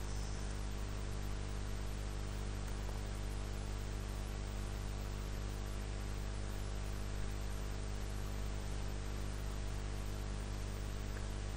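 Steady electrical mains hum with a layer of hiss: a stack of constant low tones under an even noise floor, with no other events.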